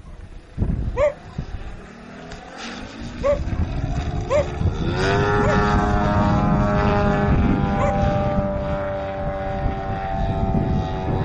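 Katana radio-controlled aerobatic model plane's motor running in flight, its pitch climbing over the first few seconds and then holding steady and loud. Wind rumbles on the microphone, and short chirp-like calls come through several times.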